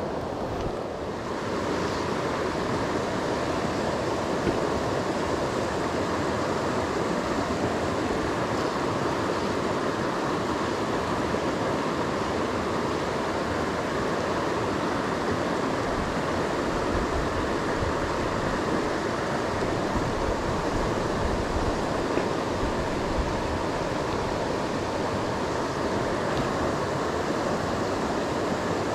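Steady rush of a river's flowing water.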